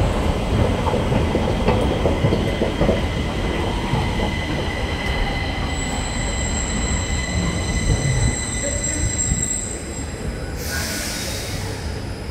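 Stockholm metro train at the platform: several steady high whining tones over a low rumble, fading out around nine seconds in. About ten and a half seconds in comes a burst of air hiss lasting about a second and a half.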